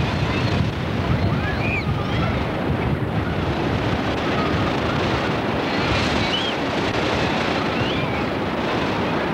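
Ocean surf breaking and washing in, with wind rumbling on the microphone, making a steady noise throughout. A few faint distant shouts are heard over it.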